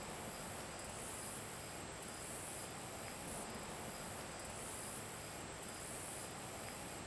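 Faint outdoor ambience: insects chirping in a steady, regular high-pitched pulsing over a soft even hiss.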